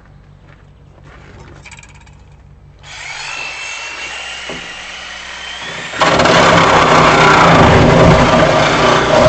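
Electric angle grinder starting up with a rising whine about three seconds in, then cutting into the truck's sheet-metal body from about six seconds on with a loud, steady grinding.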